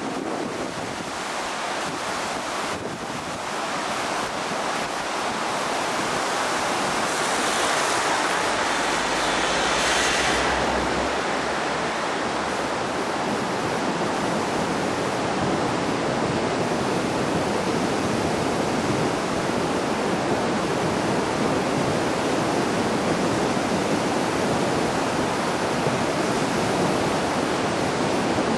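A river in flood: fast, swollen muddy water rushing past, a steady dense roar of water. A gust of wind rumbles on the microphone around eight to eleven seconds in.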